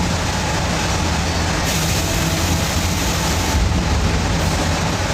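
Sawmill running under power, its engine droning steadily while the blade cuts a thin half-inch slab off the timber. The cutting noise grows louder and higher about a third of the way in, eases briefly, then comes back near the end.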